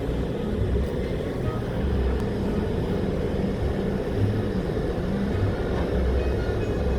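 1962 Porsche 356's starter cranking the engine on a weak 6-volt battery, the engine not catching.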